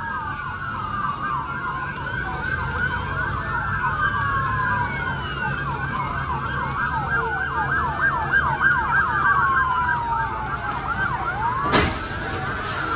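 Several police car sirens wailing and yelping at once, their rising and falling tones overlapping, over a low engine rumble. A single sharp bang cuts through near the end.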